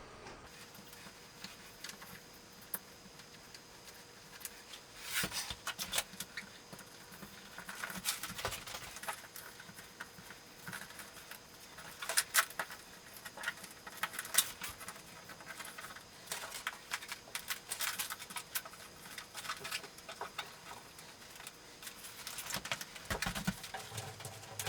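Scattered light clicks, taps and scrapes of hand work on a floor membrane as the floor-heat thermostat's sensor probes and wires are fitted, irregular and quiet over a faint steady hum.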